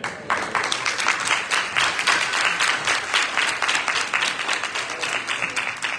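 Congregation applauding: many hands clapping together, starting a moment in and holding steady.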